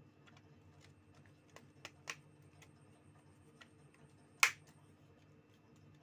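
Scattered small clicks and taps of hand tools and phone parts being handled during a mobile phone repair, with a couple of louder clicks about two seconds in and one sharp click about four and a half seconds in.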